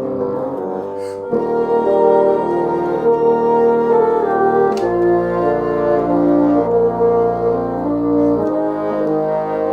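Ensemble of bassoons playing a Christmas carol in several-part harmony, holding sustained chords that change every few seconds, with a deep bass line joining about a second in.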